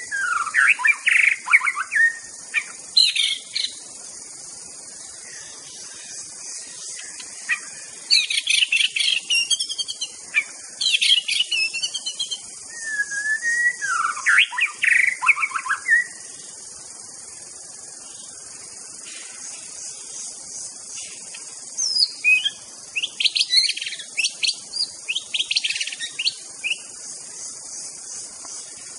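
White-rumped shama (murai batu) singing in loud bursts of varied whistled and chattering phrases, with a pause of several seconds in the middle, over a steady high hiss.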